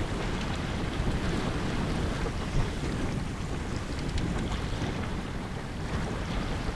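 Steady wind buffeting the microphone, with water rushing along the hull of a sailboat under sail.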